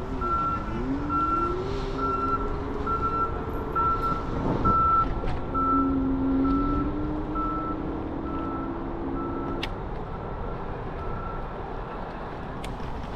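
Vehicle reversing alarm beeping about twice a second, fading away toward the end, over steady wind and road noise. Underneath, a low whine rises in pitch over the first few seconds, then holds steady and stops about two-thirds of the way through.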